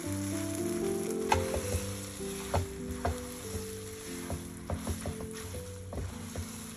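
Spaghetti in tomato sauce sizzling in a frying pan while a silicone spatula stirs and tosses it, with a string of light knocks and scrapes against the pan. Soft background music plays throughout.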